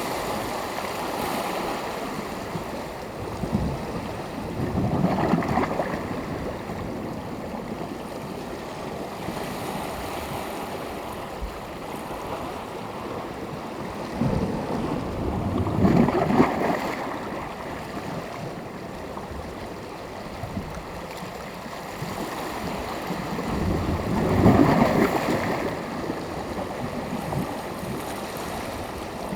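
Small sea waves breaking on the shore in a steady wash, with three larger waves swelling and breaking about five, sixteen and twenty-five seconds in.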